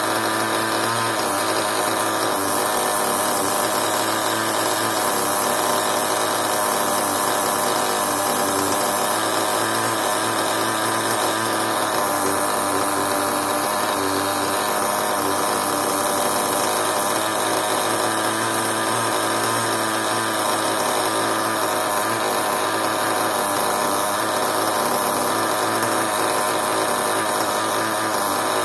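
Small nitro (glow-fuel) engine of a CEN RC monster truck running at a steady speed, with a high buzzing note and no revving.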